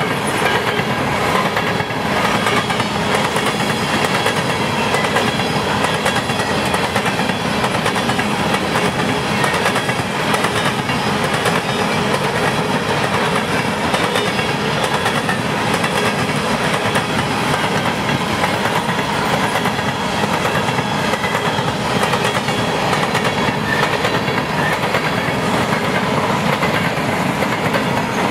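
Empty coal hopper cars of a unit freight train rolling past close by: a loud, steady clatter of steel wheels on the rails, with clickety-clack over the rail joints.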